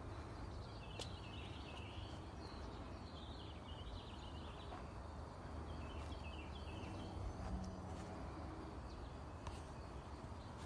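Outdoor ambience: birds chirping in short bouts, three times, over a low steady rumble, with a few faint clicks.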